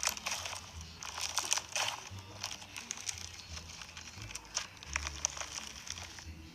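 Slime being squeezed and kneaded by hand, giving a dense, irregular run of small crackling clicks.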